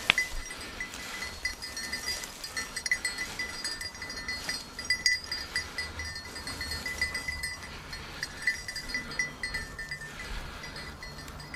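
Small bell on a pointing dog's collar jingling irregularly as the dog moves through tall dry grass, in quick uneven clusters of tinkles.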